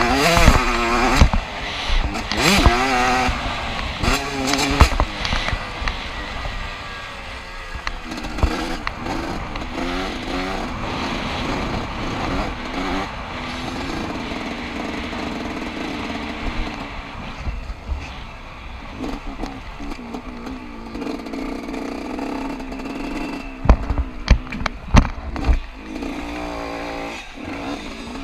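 Yamaha YZ125 125 cc single-cylinder two-stroke motocross engine heard on board, revving up and dropping back again and again as the bike is ridden round the track. A cluster of sharp knocks comes near the end.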